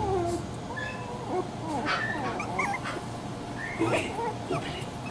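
Miniature schnauzer puppies whimpering and yipping, with short high-pitched whines and a few sharp yips.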